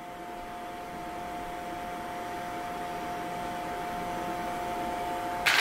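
A steady hum with a hiss underneath, holding a few fixed tones and slowly growing louder, broken near the end by a short, sharp burst of noise.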